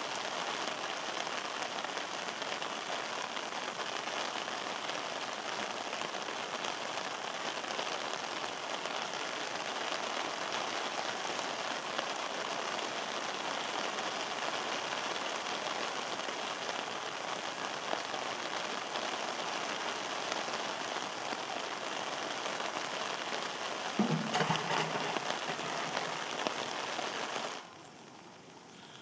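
Steady rain falling on pavement and grass. A short low sound is heard about 24 seconds in, and the rain cuts off suddenly near the end.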